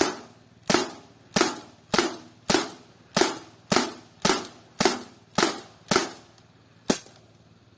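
Rossi C11 CO2 air pistol fired in quick succession: about a dozen sharp shots, a little over half a second apart, the last after a slightly longer pause.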